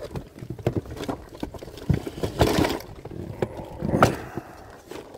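Fishing gear being handled in an inflatable boat: a string of irregular knocks and bumps, with a rustle of a fabric tackle bag about two and a half seconds in and a sharper one about four seconds in.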